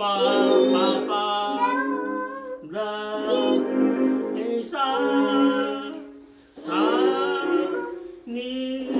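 Singing over an electronic keyboard: a man and a toddler sing in short phrases about a second long above steady held keyboard notes, with a brief break about six seconds in.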